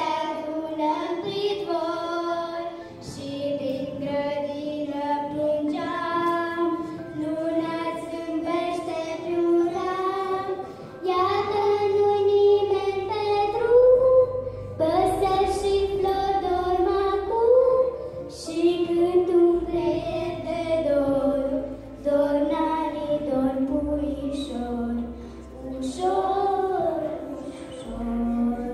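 Young girls singing a folk song, long melodic phrases with short breaks between them.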